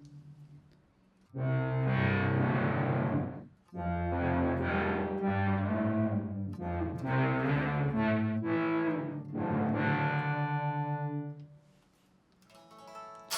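Electric guitar, a Fender Jazzmaster, played through the Time Shadows delay pedal: a fading tail, then phrases of notes and chords with delay repeats. The playing breaks off briefly about three and a half seconds in, dies away near the end, and starts again just before the end.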